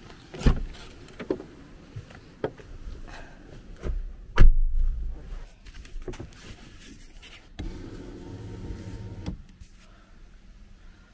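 Scattered clicks and knocks of someone getting into a car, with a car door shutting in a heavy thud about four and a half seconds in. Near the end, a car's electric window motor runs steadily for under two seconds.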